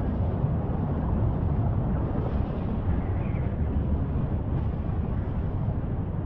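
Erupting crater of the Litli-Hrútur vent, Fagradalsfjall, giving a steady low rumble as lava spatters and fountains, with wind noise on the microphone.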